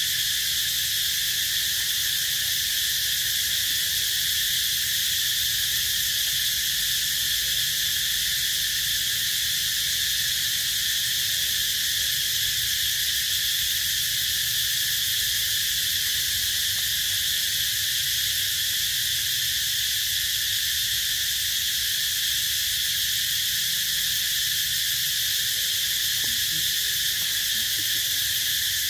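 A steady, high-pitched insect drone that does not change, with a faint low rumble beneath it.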